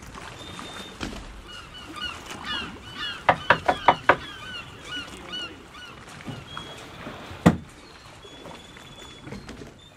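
A fist knocking five times in quick succession on a sailboat's fiberglass cockpit side, a knock as at a door, with birds chirping repeatedly around it. A single sharp thump follows a few seconds later.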